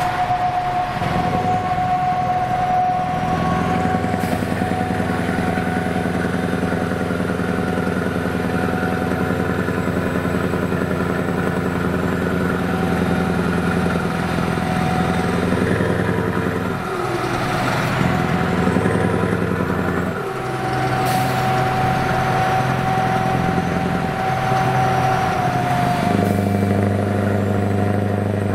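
Scania V8 truck engine running at motorway speed, heard from a car driving alongside, over road and wind noise. Its note steps up or down a few times.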